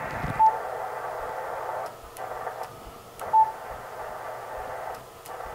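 Band noise hissing from an HF transceiver's speaker, its pitch range narrowing and changing as the operating mode is stepped. Two short beeps from the radio as its mode button is pressed.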